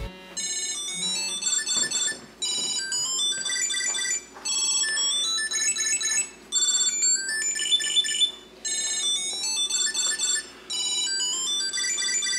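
A second-generation Tile Bluetooth tracker rings in response to a find command. It plays a short, high-pitched electronic melody over and over, with a brief pause about every two seconds.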